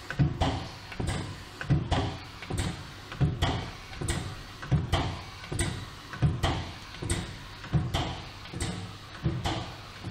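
Two-colour pneumatic pad printing machine with closed ink cups running, its pads and shuttle clacking in a steady rhythm, about one stroke every three-quarters of a second.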